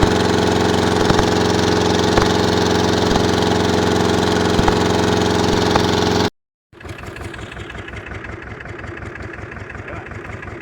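An engine running steadily, with a few light clicks over it. About six seconds in it cuts off, and a quieter engine with an even, low thudding rhythm follows.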